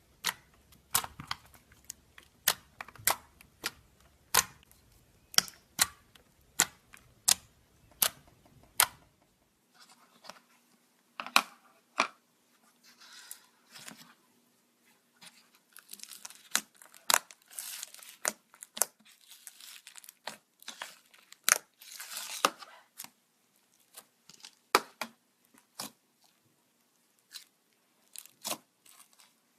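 Slime being squeezed and worked by hand, giving many irregular sharp clicks and pops, with stretches of crackling in the middle.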